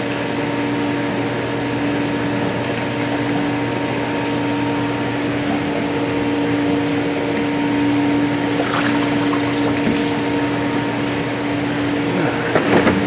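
Steady hum of the rehabilitation tank room's water pumps and filtration, several steady tones over a rushing noise. A few brief handling and splashing noises come about two-thirds of the way in and again near the end, as the sea turtle is lifted and lowered into the tank water.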